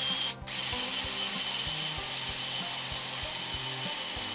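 Die grinder spinning a 3D printed plastic planetary gearbox at high speed: a steady high whine over a hiss, with a short break just after the start.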